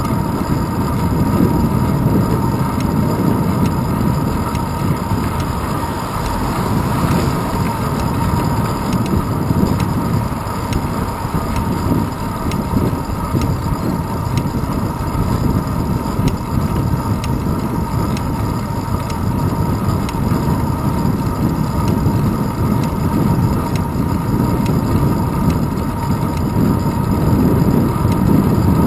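Wind buffeting and road vibration picked up by a handlebar-mounted GoPro Hero 2 on a moving bicycle: a loud, steady low rumble, with a faint steady tone above it.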